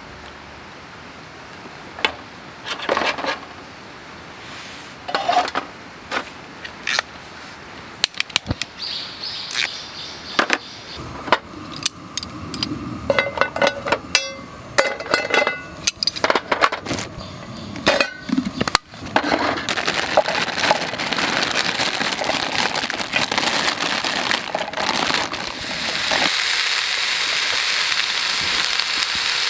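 Aluminium Trangia storm-cooker parts and a frying pan clinking and knocking as the stove is set up over its alcohol burner. About two-thirds of the way through, a steady sizzling hiss sets in and grows louder near the end as vegetables fry in the pan.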